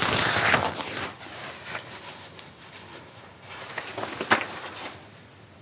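Close handling noise from clothing: fabric brushing the microphone near the start, then scattered small clicks and knocks, with a sharp click about four seconds in.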